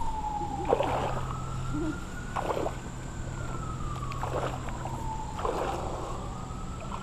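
A distant siren wailing, its pitch slowly falling and rising again twice. Short rushing noises come and go every second or two alongside it.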